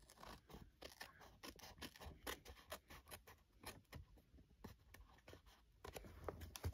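Scissors cutting paper, heard faintly as a run of quiet, irregular snips and clicks.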